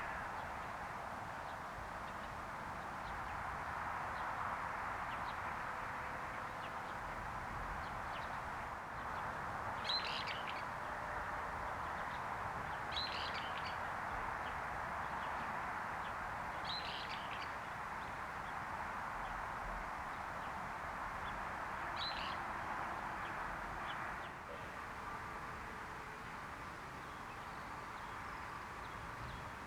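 A bird calling four times, a few seconds apart: short, high calls over a steady background hiss.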